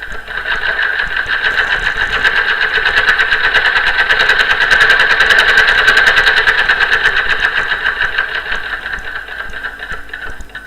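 Dürkopp Adler 580 industrial buttonhole sewing machine stitching a buttonhole: a fast, even needle rattle that builds up, is loudest around the middle and eases off near the end.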